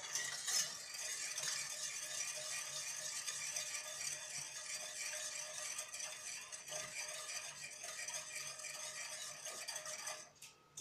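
Metal spoon stirring sugar and water in a stainless steel saucepan, scraping steadily across the pan's bottom while the sugar is still undissolved; it pauses briefly near the end.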